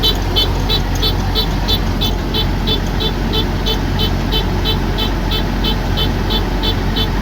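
Diesel engine of a Kubota DC108X combine harvester running steadily, with a rapid high-pitched electronic beeping, about four beeps a second, sounding over the drone.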